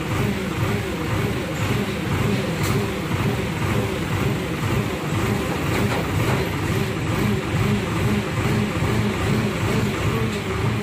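Diesel engine of a pick-and-carry hydra crane running steadily under load, powering the hydraulics while a heavy hydraulic press hangs from the hook.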